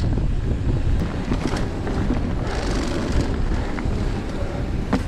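Wind buffeting the microphone as a Marin San Quentin 3 hardtail mountain bike rides fast down a dirt trail: a steady rumble of wind and tyres on dirt, with scattered clicks and rattles from the bike over the bumps.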